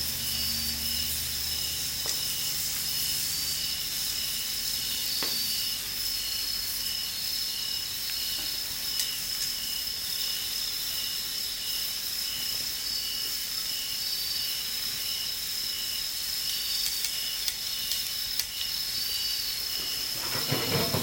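Pork sizzling over a campfire, a steady hiss with a few faint crackles, under the continuous high trill and regular pulsing chirps of insects.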